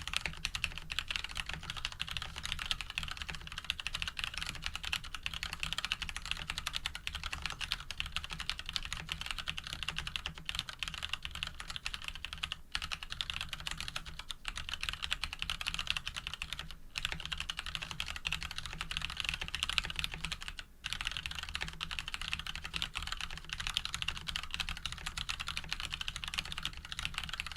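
Fast, continuous typing on a custom mechanical keyboard with lubed Cherry MX Brown switches in a steel plate, a dense stream of key clacks broken by a few short pauses.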